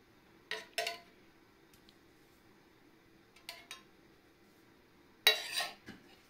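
A kitchen utensil clinking against a dish a few times as melted butter and oil are spread over dough: a pair of clinks about half a second in, a fainter pair around three and a half seconds, and the loudest about five seconds in.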